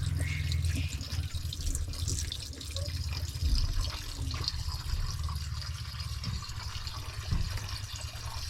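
Water trickling and dripping, over a steady low rumble, with a couple of brief knocks.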